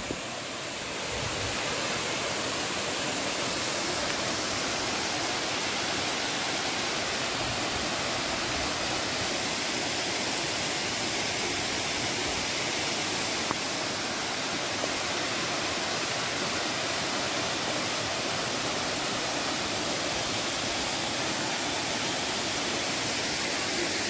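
Small waterfall splashing down rock ledges: a steady, even rush of water.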